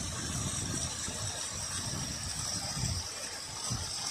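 Water churning and foaming around an anchor chain where it enters the sea beside a floating dock, a steady hiss with an irregular low rumble under it.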